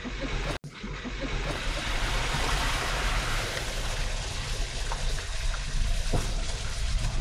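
Dacia Duster SUV driving through a water-filled stretch of an off-road track: a steady rush of water splashing against the wheels and underbody over the engine's low rumble. The sound drops out for a split second about half a second in.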